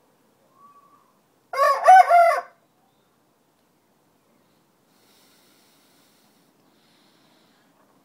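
A rooster crowing once, a short crow of about a second that wavers in pitch, with a faint brief call just before it.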